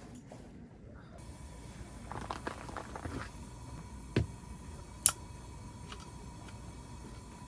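A few light clicks and taps of small objects being handled, with one sharp click about five seconds in.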